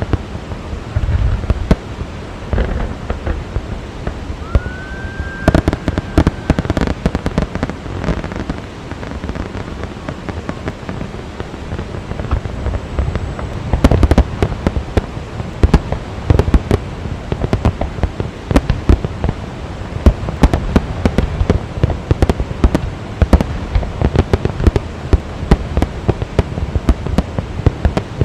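Fireworks going off: bangs and crackling shells, sparse at first and dense and continuous from about halfway through. A short rising whistle comes about five seconds in.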